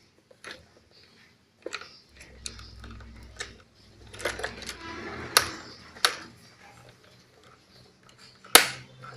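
Toy excavator being handled: a string of irregular sharp clicks and knocks, the loudest near the end, with a brief low hum in between.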